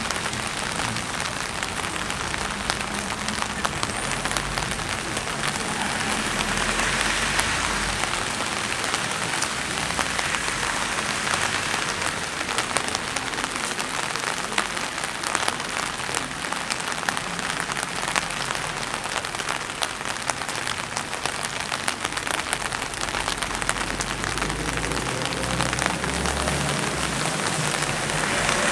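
Steady rain, a dense patter of drops.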